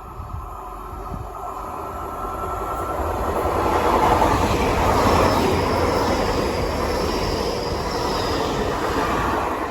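Hull Trains class 802 passenger train passing through the station without stopping. The rumble of wheels on rail builds over about four seconds and then holds, with a thin high whine through the middle of the pass.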